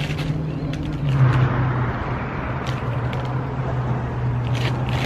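Road traffic passing over a steady low mechanical hum, with a few short crisp rustles of a paper food bag being handled.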